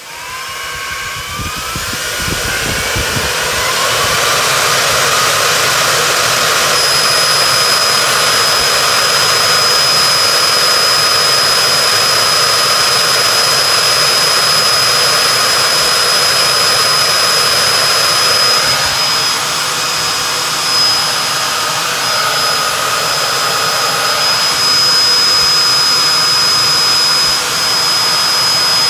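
Dell PowerEdge M1000E blade chassis fans spinning up at power-on from scratch: a rising whine over the first few seconds, then a loud, steady, jet-engine-like rush with a high whine on top.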